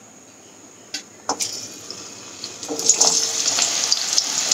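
Cornflour-coated boiled chickpeas dropped a handful at a time into hot oil in a kadai, sizzling and crackling. After a couple of clicks about a second in, the sizzle starts faintly and grows loud from about three seconds in as more chickpeas go in.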